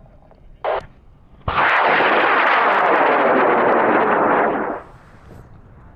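High-power rocket motor igniting with a sudden blast and burning with a steady, loud roar for about three seconds, then cutting off at burnout. A brief sharp sound comes shortly before ignition.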